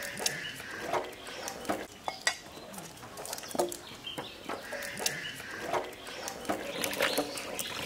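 Knives and hand tools clicking and scraping as water caltrop shells are cracked and peeled, with pieces tapping onto steel plates and bowls. A farm animal calls now and then.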